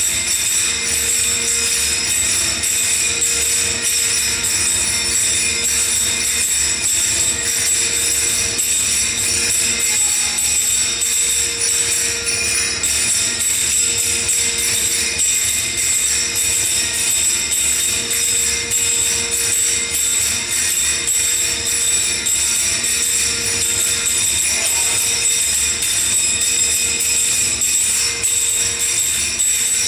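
Music playing, with jingling percussion.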